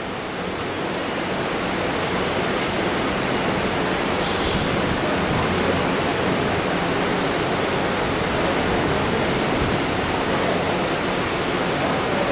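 A steady rushing hiss with a faint low hum under it, growing a little louder over the first couple of seconds and then holding even.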